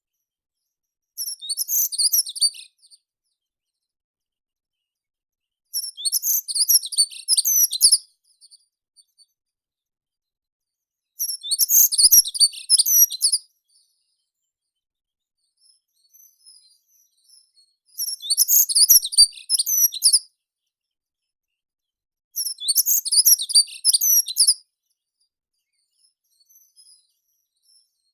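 Songbird song: five high, twittering phrases about two seconds long each, coming every five to six seconds.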